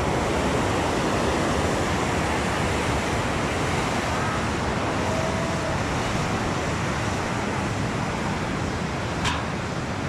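Steady rush of water from the falls, with wind on the microphone. A single sharp click about nine seconds in.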